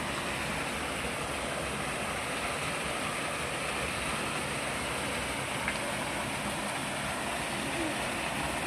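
Running water making a steady rushing noise, with a tiny click about halfway through.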